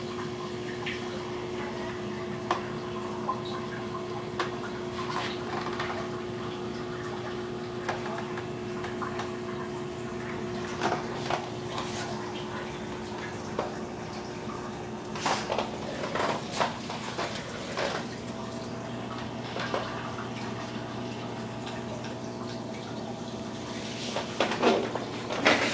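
Marine aquarium running: a steady pump hum under trickling, dripping water. Scattered light clicks and knocks are heard, clustered about halfway through and again near the end.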